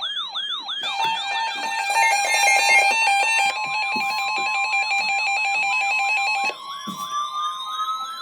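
Layered electronic siren and alarm tones sounding as an alert signal ahead of a severe thunderstorm warning. A fast yelp siren sweeps down about three times a second throughout; a stepping electronic beeping pattern plays over it from about a second in until about six and a half seconds, and a wail siren begins to rise near the end.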